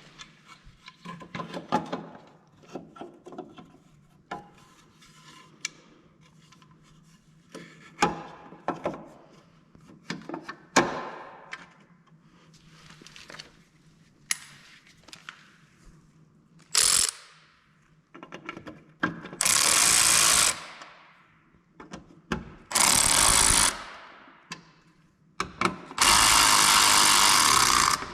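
Scattered clicks and knocks of work on hardware, then a power tool running in three short bursts, each steady while it runs, the last the longest, as bolts are run on the Jeep's bumper and fender fittings.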